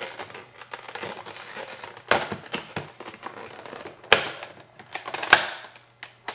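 Clear plastic clamshell packaging crinkling and crackling as it is pried open by hand. Three sharp cracks come about two, four and five seconds in, the last the loudest.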